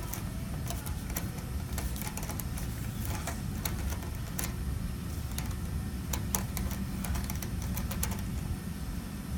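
Scattered small metallic clicks and taps of an Allen key working the hex screws of an electric range's terminal block, over a steady low hum.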